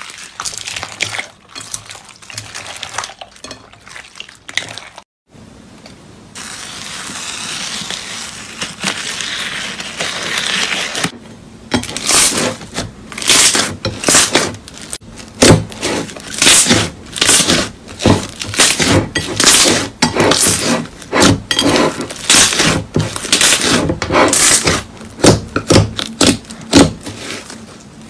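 Slime being handled and squeezed: soft crackling at first, a steady fizzing crackle for a few seconds, then a run of sharp pops and clicks, several a second, from about eleven seconds in.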